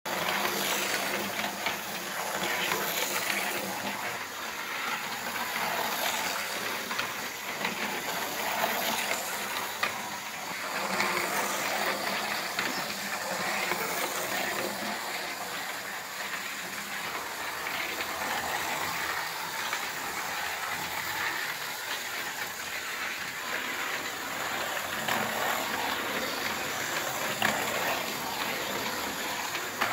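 Tri-ang Minic Motorway model Jaguar cars running around their steel-railed track: a steady whirring hiss of small electric motors and wheels, with occasional light clicks and rattles.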